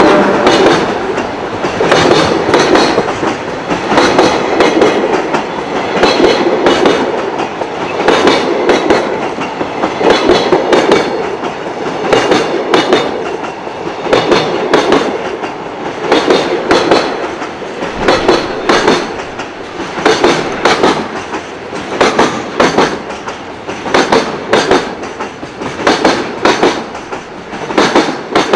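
Freight wagons rolling over rail joints: a steady clickety-clack, sets of paired clacks about every two seconds as the wagons' bogies cross the joints, over a continuous wheel rumble.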